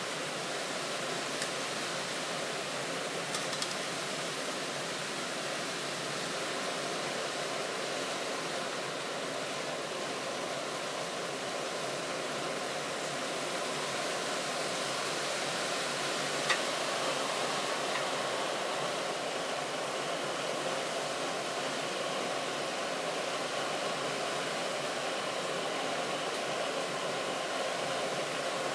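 Optimus 8R petrol camping stove burning with a steady blue flame: an even rushing hiss from the burner, growing slightly louder partway through. One sharp tick stands out about halfway through.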